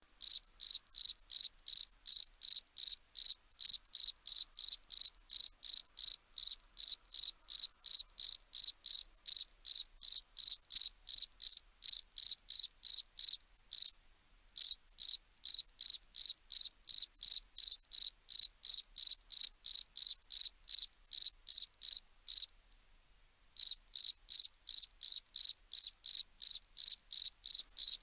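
A cricket chirping in a steady rhythm, about three short high chirps a second, with a brief break about halfway through and a longer one of about a second later on.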